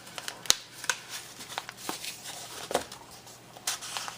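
Handmade paper photo folio being handled, with light paper rustling and scattered taps and clicks, the sharpest about half a second in.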